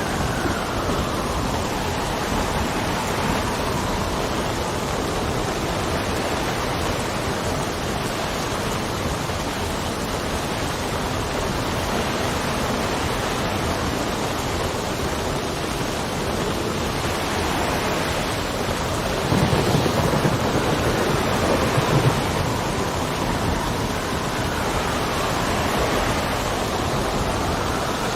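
Steady heavy rain with wind gusting, rising and falling. A low rumble of thunder swells about twenty seconds in.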